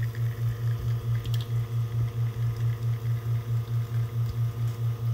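Profitec Pro 700 espresso machine's rotary pump running during a shot extraction: a steady low hum that pulses rapidly, several times a second.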